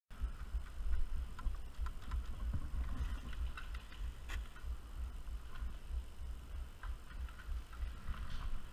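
Wind rumbling on the helmet camera's microphone, with scattered faint clicks and rustles and one sharper click about four seconds in.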